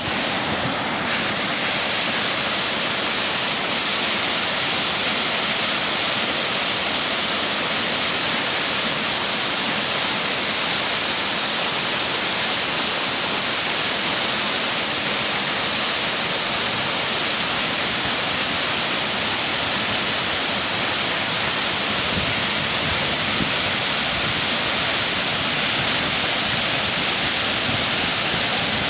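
Spring water rushing and falling in a steady, unbroken hiss.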